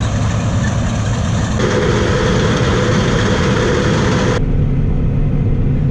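Heavy harvest machinery running steadily with a deep engine hum. The noise changes abruptly twice, about a second and a half in and again about four and a half seconds in.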